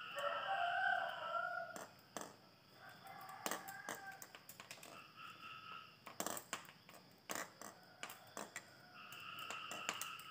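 A rooster crowing several times: a long crow at the start, shorter ones around three to five seconds in, and another from about nine seconds in. Sharp clicks and knocks of a welding machine's cable connector being handled run between the crows.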